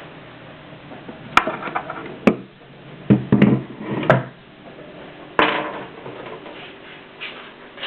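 Mignon index typewriter at work: a handful of sharp mechanical clacks and knocks, irregularly spaced, with a quick flurry about three seconds in.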